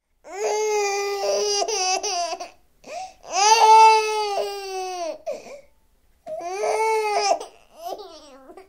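A baby crying: three long, high wails, each held for one to two and a half seconds, with short sobbing catches of breath between them.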